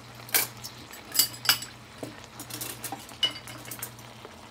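A metal utensil clinking against a pan of stir-fry vegetables: a handful of sharp clinks with lighter taps between them, over a low steady hum.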